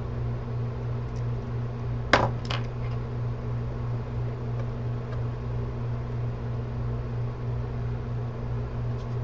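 Two sharp light clicks of a small metal part on a hard work surface, about half a second apart, over a steady low hum.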